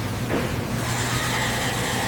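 A car engine running steadily, a constant low hum under a hiss, cutting in abruptly out of silence.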